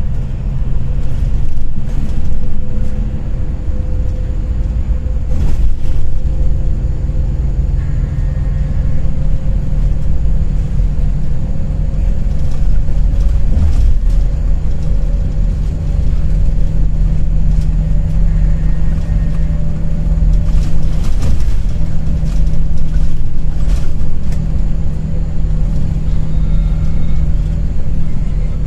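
Moving bus heard from inside the cabin: a steady low engine and road rumble, with a few brief knocks and rattles.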